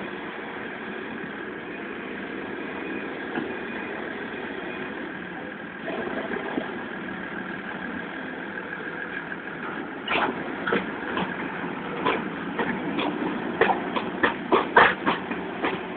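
Fendt 926 tractor's diesel engine running steadily. From about ten seconds in, a string of sharp clanks and knocks comes in, getting louder and closer together toward the end.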